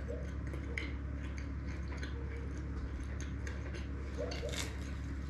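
Close-up chewing of crispy phyllo bougatsa pastry: irregular small crackles and clicks over a steady low hum.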